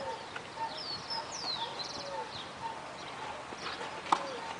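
Tennis ball struck by rackets during a rally on a clay court: a few sharp hits, the loudest about four seconds in. Birds chirp and call throughout.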